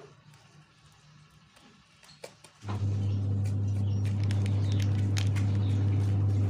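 A metal spoon scraping and clicking against an aluminium bowl while stirring dry flour, sugar and salt. About two and a half seconds in, a loud, steady low hum starts suddenly and drowns it, then cuts off suddenly near the end.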